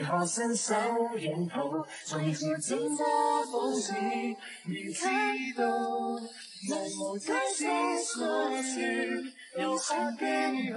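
A singer performing a TV drama's closing theme song, a Cantonese pop ballad with light backing; the sung lines hold and bend in pitch throughout.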